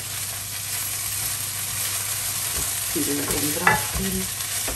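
Sliced onions and apple rings sizzling in hot fat in a frying pan while being stirred and turned, with a brief clink of the utensil against the pan about three and a half seconds in.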